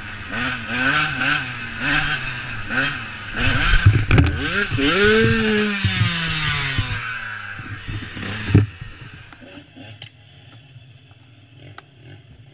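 Dirt bike engine revving in short bursts along a rough trail, then a clatter as the bike goes down about four seconds in. The engine revs and slowly winds down, then cuts out abruptly with a sharp knock about two-thirds of the way through, followed by faint clicks.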